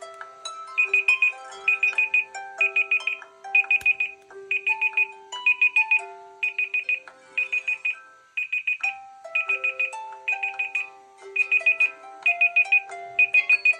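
A mobile phone's electronic ringtone playing: a stepping melody over a held low note, with clusters of rapid high beeps about once a second. It dips briefly about eight seconds in, then repeats.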